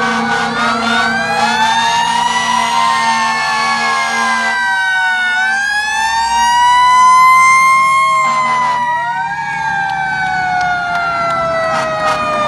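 Fire truck sirens wailing as fire engines pass. Two or more sirens overlap, each sliding slowly up and then down in pitch over several seconds.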